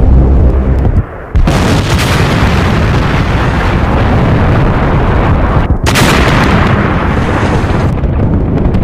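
Piston aircraft engines droning for about a second, cut off abruptly, then a loud, dense, continuous din of artillery fire and explosions with a brief dip about six seconds in.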